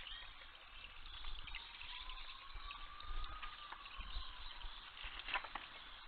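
Steady trickle of water from a small stone garden cascade into its pool, with faint bird calls behind it. A brief knock about five seconds in.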